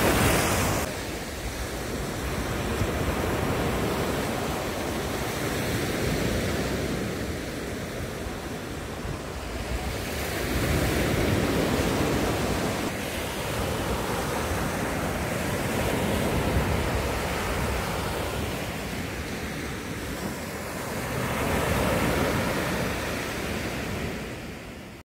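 Ocean waves breaking on a beach, the surf swelling and ebbing every several seconds, fading out at the end.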